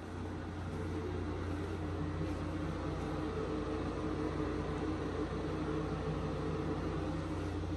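Steady mechanical hum and hiss of a ventilation fan, with a low drone underneath. It grows a little louder about a second in and then holds steady.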